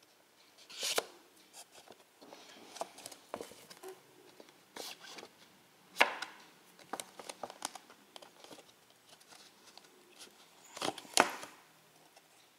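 Hands handling a cardboard Blu-ray digipak and its discs: rustling and scraping of card and plastic as discs are worked out of tight cardboard slots. Three sharp clacks stand out, about a second in, midway and near the end.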